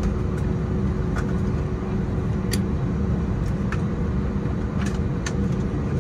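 Steady low cabin hum inside an Airbus A320 standing on its stand, with a faint steady tone over it. Light clicks sound every second or so.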